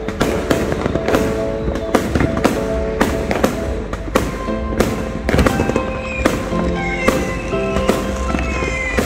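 Aerial fireworks going off in quick succession overhead: a dense run of sharp bangs and crackles, about two or three a second, irregular.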